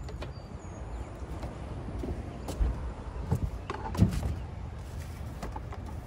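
A few dull knocks, the loudest about four seconds in, over a low steady rumble.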